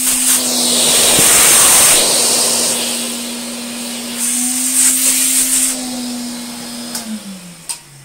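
Hoover Constellation 867A canister vacuum running: a steady motor hum under a rush of air through the hose, which swells loudest in the first couple of seconds and again around four to six seconds in. About seven seconds in the motor is switched off and winds down, its hum falling in pitch.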